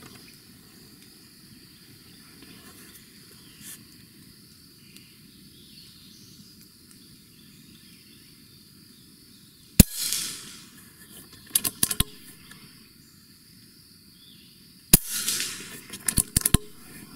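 Two shots from a .25 calibre PCP air rifle (Umarex Origin), about five seconds apart: each a sharp crack that fades over about a second. A short run of clicks follows each shot a couple of seconds later.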